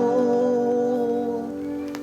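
A song with acoustic guitar: a held sung note, wavering slightly, fades out about a second and a half in while the guitar chord rings on.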